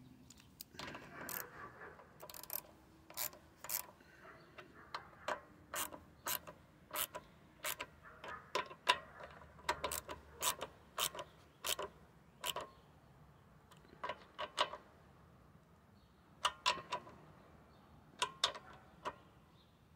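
Socket ratchet clicking in short back-and-forth strokes as a nut is run down on the freshly refitted carburetor of a Honda HR215 lawnmower. There are sharp clicks about one or two a second, a short pause about three-quarters of the way through, then a few more.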